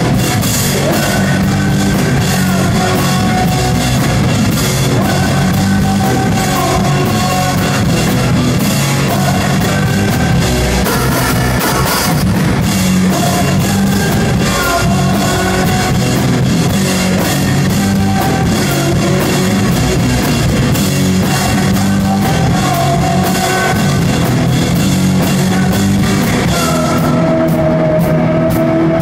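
Rock band playing live, loud and dense: an electric guitar over a drum kit with crashing cymbals. Near the end the cymbals stop and a held note rings on.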